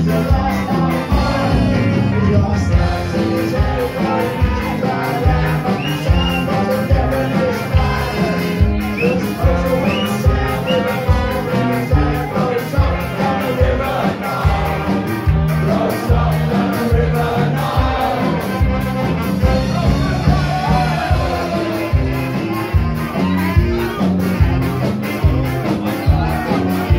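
Live band playing an upbeat number with a steady, even beat, heard from among the audience.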